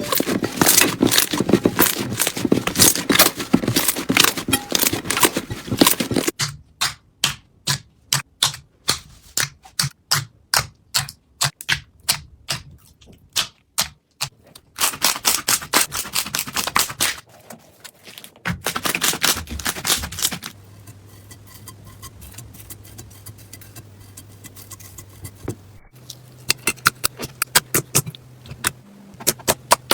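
Crunchy slime being pressed and squeezed by hand, crackling and popping. It starts with dense crackling, then gives separate sharp pops about three a second, then two more short stretches of crackling. There is a quiet pause with a low hum before scattered pops return near the end.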